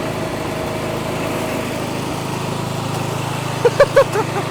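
John Deere S92 riding mower's small engine running steadily under load. Near the end its rear tyres give a quick run of short squeaks on the pavement during a burnout attempt.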